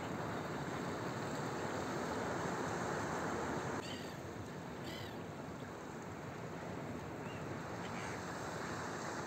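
Steady rush of rough sea and wind, with gulls giving short calls twice about four and five seconds in and fainter calls near the end.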